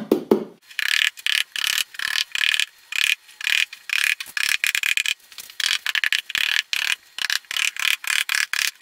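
Small tacking hammer peening over the tabs that grip a snowmobile seat cover: quick, light taps in runs of several a second, with short pauses between the runs.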